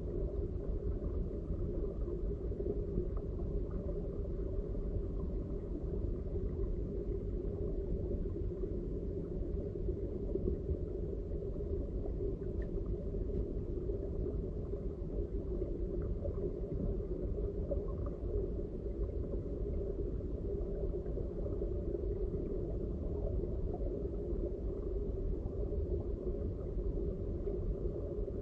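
Steady, muffled rumble of flowing stream water heard underwater through the camera's housing, with a few faint ticks.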